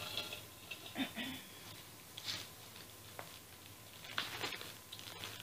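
Faint rustling and small knocks of things being handled and moved about, with a brief low murmur about a second in.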